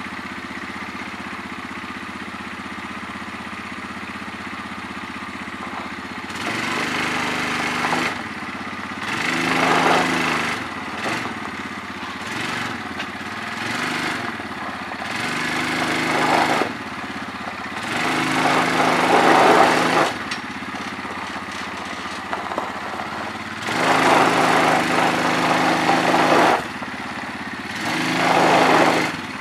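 Four-wheeler ATV engine idling steadily for about six seconds. It then revs up and drops back again and again, in surges a second or two long, while it works to push a boat trailer backward.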